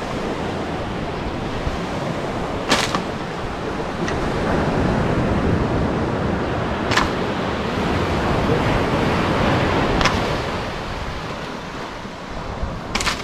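Steady surf and wind noise. Four sharp knocks come a few seconds apart as a long bamboo pole strikes at a bunch of green coconuts in a palm tree.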